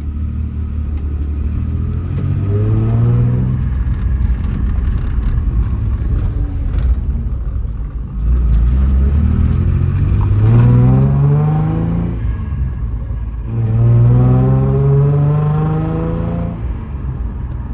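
Car engine pulling under acceleration: its note climbs and falls back three times, as if it is shifting up through the gears. It is a freshly swapped engine still in its break-in period.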